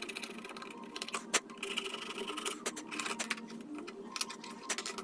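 Light metallic clicks and taps as a sewing machine's needle plate is handled and seated on the machine bed.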